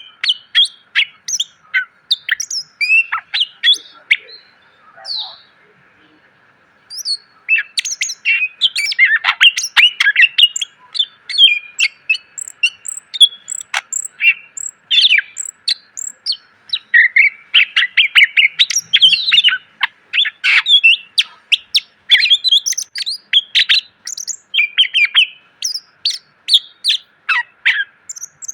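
Cucak ijo (green leafbird) singing a fast, varied song of chirps, whistles and trills crammed with mimicked phrases. There is a lull of a couple of seconds about five seconds in, then the song runs on densely.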